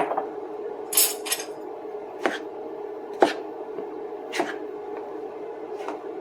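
Spoon stirring cheese biscuit dough in a mixing bowl, knocking against the bowl about once a second, with a scraping rub about a second in. A steady hum runs underneath.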